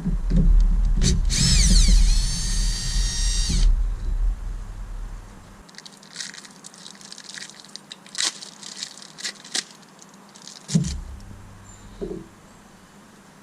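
A power drill runs in one burst of about two seconds: its whine dips in pitch, holds steady, then cuts off, over a low rumble. Small clicks and knocks of parts being handled follow.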